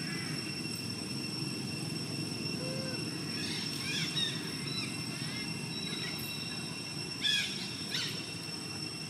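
Outdoor ambience: a low steady rumble and a steady high-pitched hum, with a few short chirping calls about three to four seconds in and again near seven seconds.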